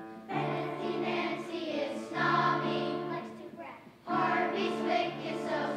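Group of fourth-grade children singing together in chorus, in held phrases about two seconds long with short breaths between them.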